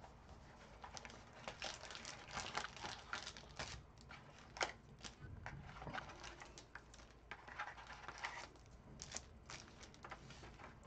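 Trading card pack wrappers being handled and opened: faint, irregular crinkles with a few sharper clicks.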